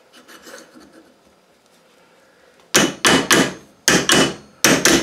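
Sharp metal-on-metal knocks, about six in quick succession starting a little past halfway, from a tapered bushing being handled and set on a steel pulley arbor shaft; each knock rings briefly.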